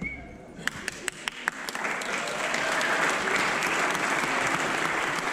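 Audience applause: a few scattered claps about half a second in, swelling into full, steady applause after about two seconds.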